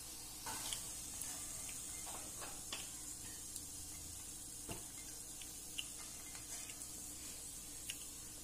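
Peanuts frying in hot oil in an aluminium kadai: a faint, steady sizzle, with a few light clicks of a perforated metal ladle against the pan as the fried peanuts are scooped out of the oil.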